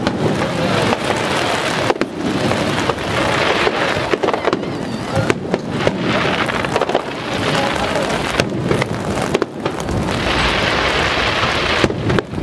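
Aerial fireworks shells bursting one after another: many sharp bangs over a continuous hiss, with heavier low booms from about ten seconds in.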